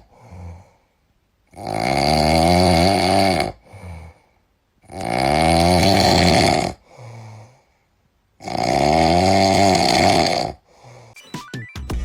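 A pet snoring loudly: three long snores of about two seconds each, a few seconds apart, with quieter breaths between them. Music starts near the end.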